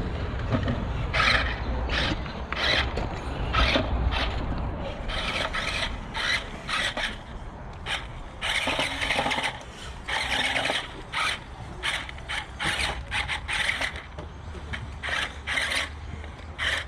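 Small electric RC crawler (JJRC Q137 8x8 skid steer) whining in many short, irregular bursts as its motors and gearboxes are throttled on and off while it scrabbles over the course.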